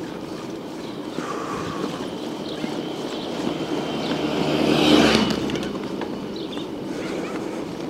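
A motor vehicle passing on the road, growing louder to a peak about five seconds in and then fading, over steady riding noise.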